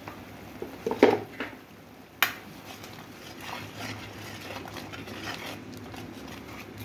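A metal spoon knocking against a metal pan about a second in and again with a sharp clink a little after two seconds, as a masala paste is stirred; between the knocks there is a quiet sizzle of the paste frying in oil.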